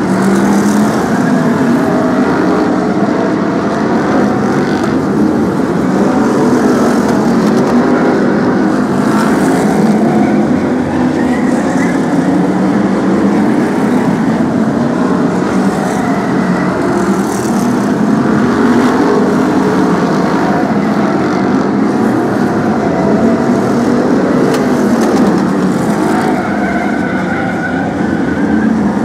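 A pack of BRISCA F1 stock cars' V8 engines racing together: a loud, continuous mix of engines rising and falling in pitch as the cars accelerate and lift around the oval.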